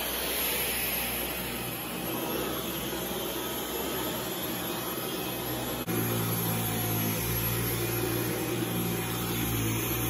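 Dyson V11 Absolute cordless stick vacuum running steadily, its motorised brush-bar cleaner head working over carpet. About six seconds in, the sound steps up a little louder with a stronger low hum.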